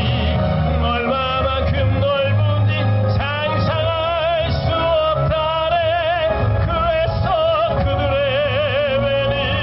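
A tenor singing into a microphone over instrumental accompaniment, holding long notes with a wide vibrato.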